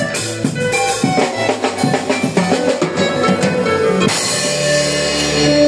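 Live band music: a drum kit played with quick strikes under bass guitar and keyboard. About four seconds in, the drum strikes thin out and longer held notes take over.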